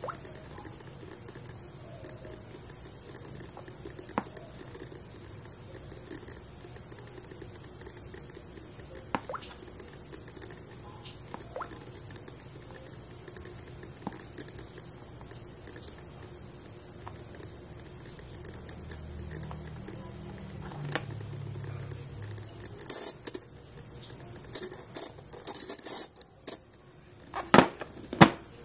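Fingertips tapping a smartphone touchscreen: scattered light clicks over a steady hiss, then a few louder scraping noises and two sharp knocks near the end as the phone is handled.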